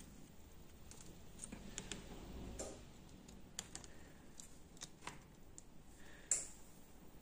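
Faint, scattered clicks and taps of fingers handling and pressing on an opened smartphone's parts, with one sharper click about six seconds in.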